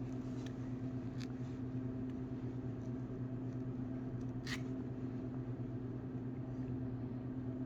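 Steady low electrical hum with a few faint small clicks, the clearest about four and a half seconds in.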